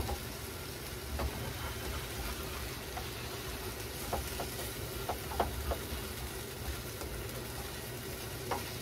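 Leftover happōsai with egg sizzling in a frying pan as it is stirred with chopsticks, with scattered light clicks of the chopsticks against the pan.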